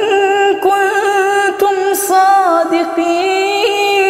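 A woman's voice chanting Quran recitation in the melodic tajweed style, unaccompanied, drawing the syllables out into long held notes with small ornamental turns.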